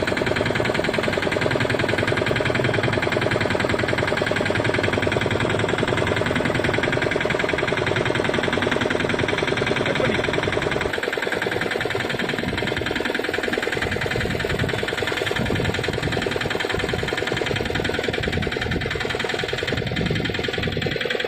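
Fishing boat's engine running steadily with a fast, even pulse; about halfway through the low end of the sound thins and becomes more uneven.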